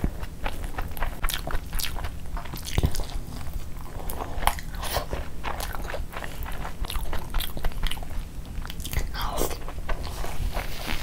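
Close-miked eating sounds: chewing a mouthful of mutton kabsa rice and meat, with many short wet mouth clicks over a steady low hum.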